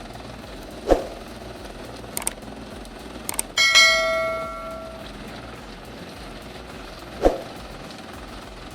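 A loud metallic clang about three and a half seconds in, ringing on with several clear tones that fade over about a second and a half, over a steady machine hum. Dull thumps come about a second in and again near the end, with a few short clicks before the clang.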